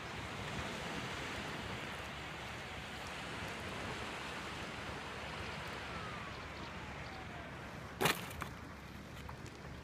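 Steady outdoor wind and rustle, then about eight seconds in a sharp clatter as a small depron foam RC plane comes down on concrete paving, followed by a few small clicks.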